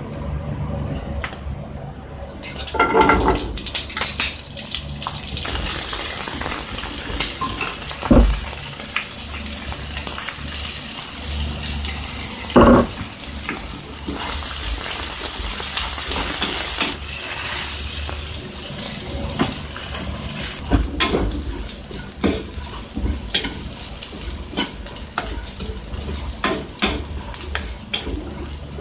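Cut green beans sizzling in hot sesame oil in a coated frying pan, stirred with a wooden spatula that scrapes and taps the pan. The sizzle starts about two and a half seconds in, is loudest and steady until about eighteen seconds, then goes softer with frequent clicks of stirring.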